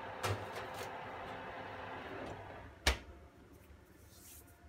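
Metal cake tin set onto an oven's wire rack with a couple of clinks, then the oven door shut with one loud knock about three seconds in. A steady hum from the open oven drops away once the door closes.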